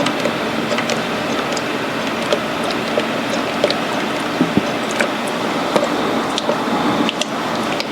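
Full-synthetic motor oil pouring from a jug into the engine's oil filler for the final fill after an engine flush: a steady liquid pour with scattered small clicks.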